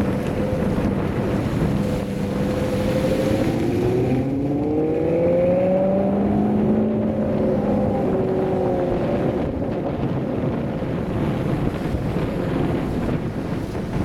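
Maserati Quattroporte Sport GTS's V8 exhaust note, rising in pitch as the car accelerates about four seconds in, then falling away as it eases off. Wind noise on the microphone runs underneath.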